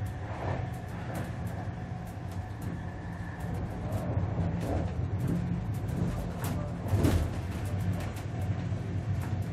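Cabin ambience of a German ICE high-speed train under way: a steady low rumble with frequent small rattles and clicks. A faint whine fades out a few seconds in, and a louder knock comes about seven seconds in.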